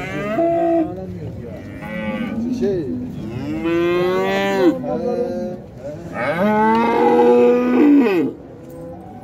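Young cattle mooing: a few short calls, then two long, drawn-out moos in the second half, from more than one animal at different pitches.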